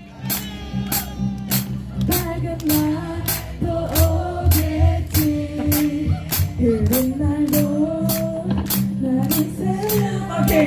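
A woman singing a slow pop ballad through a microphone and PA over a backing track, with a steady beat of about three hits a second.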